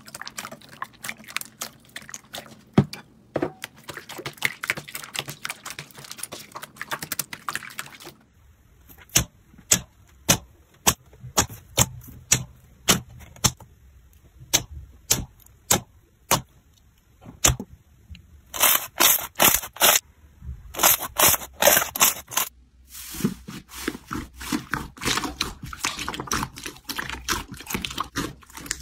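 Slime being pressed, poked and squeezed by hand, making sharp crackling clicks and pops. The clicks come in dense runs at first, thin out to separate pops in the middle, and close in again near the end as the clips change.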